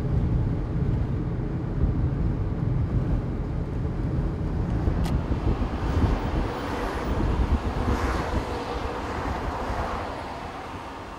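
Steady low rumble of a car driving, road and engine noise heard from inside the cabin, swelling in the middle and easing off near the end.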